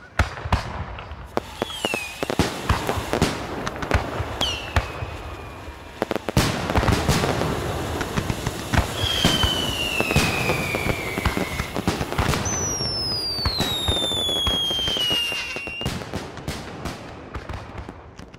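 Fireworks going off: rapid crackling and pops mixed with louder bangs, and several long whistles falling in pitch, the longest two lasting a few seconds each in the second half. The crackling thins out near the end.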